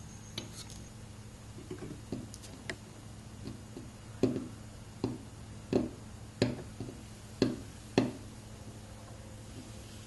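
Steel seal-carving knife pushed through a seal stone in short cuts, each a brief scrape. A few faint strokes come first, then about six louder ones in quick succession, roughly one every half to one second.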